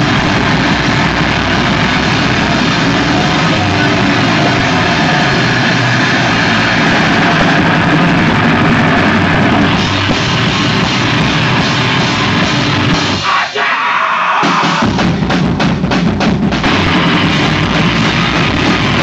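Crust punk band playing live and loud, with distorted electric guitars over pounding drums. About two-thirds of the way through, the bottom drops out for a moment, then the band hits a run of sharp accented stops before crashing back in together.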